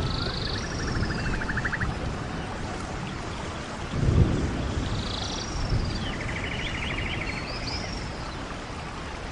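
Rainforest ambience: a steady rush of rain or falling water, with a bird repeating the same phrase twice, high swooping whistles followed by a fast even trill. A low rumble swells about four seconds in.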